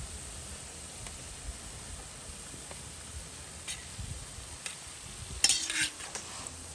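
Chin chin dough pieces deep-frying in hot oil, a steady faint sizzle with a few light clicks. A brief scraping clatter, the loudest sound, comes about five and a half seconds in.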